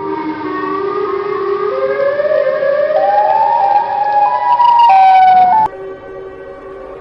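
Siren wail of an emergency alert alarm, rising slowly in pitch and growing louder for about five and a half seconds, then cutting off suddenly. A steady low droning tone of several pitches takes over near the end.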